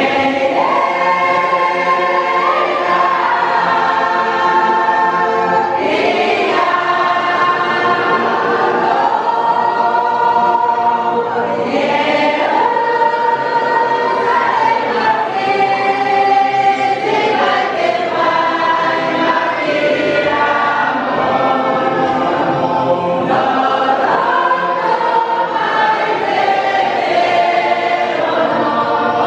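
Church congregation singing a hymn together, many voices in harmony holding long notes that change pitch every few seconds.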